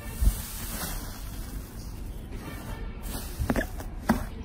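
Green 'thin-film iceberg' textured slime pressed and dug into by hand, giving a soft steady fizzy hiss. A dull thump comes just after the start as the palm presses down, and a couple of sharp crackles come about three and a half and four seconds in as the fingers break into it.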